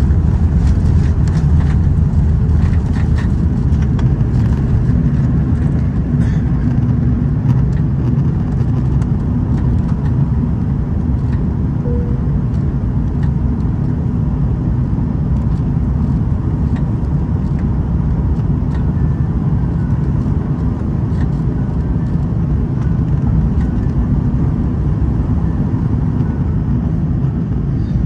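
Airbus A330's Rolls-Royce Trent 700 turbofans at takeoff thrust, heard inside the cabin over the wing: a loud, steady, low roar through the end of the takeoff roll, liftoff and initial climb.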